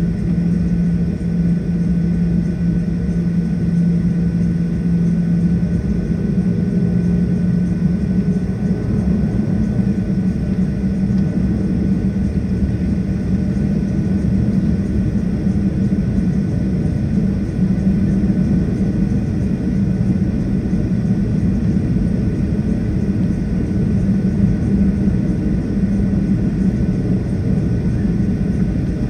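Jet airliner taxiing, heard from inside the cabin: a steady low engine drone and rumble. The strongest hum steps up a little in pitch about six seconds in.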